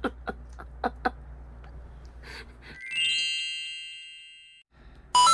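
A few sharp taps in the first second, then an edited-in bright chime sound effect with many ringing tones that fades away over about two seconds, followed by another sharp chime hit near the end.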